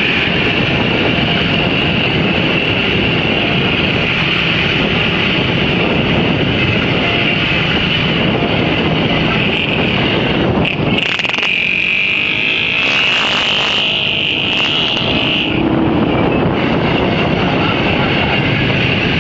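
Wind rushing over the microphone of a moving vehicle, mixed with steady engine noise while riding along a road behind a stunt motorcycle. About halfway through, the low rumble drops back and a high whine stands out for a few seconds.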